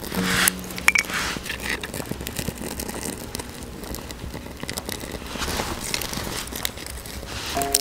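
Several quick, harsh scrapes in the first two seconds, then a small fire catching on a piece of wood and shavings, with faint irregular crackling and the rustle of the wood being handled.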